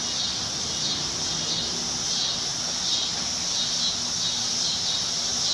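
Outdoor summer insect chorus: a steady high-pitched buzzing that slowly swells and fades, with a faint low hum beneath.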